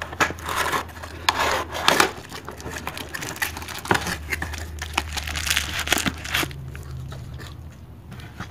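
Cardboard box insert and plastic bubble wrap being handled and pulled out of a box: irregular rustling and crinkling with scrapes and light knocks, busiest in the first couple of seconds.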